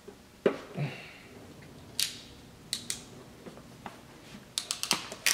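Hand wire crimper-stripper worked on a jumper wire: a knock about half a second in, then sharp separate clicks and snaps, with a quick run of clicks near the end as the tool cuts and crimps.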